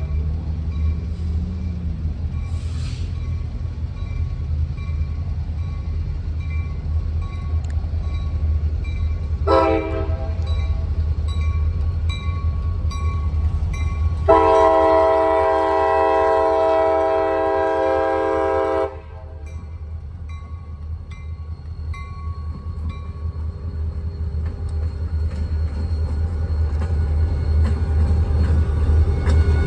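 CSX diesel freight locomotives approaching a grade crossing, their engines rumbling louder as they draw near and pass close. The multi-chime air horn sounds a short blast and then a long blast of about four and a half seconds, the closing notes of the crossing horn signal. A crossing bell rings faintly and steadily underneath.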